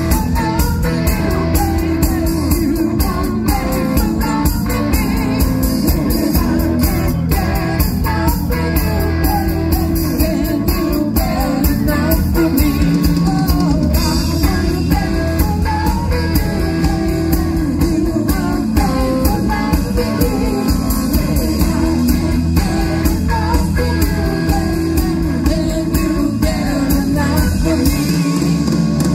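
Live rock band playing, with singing over guitar and a steady drum-kit beat.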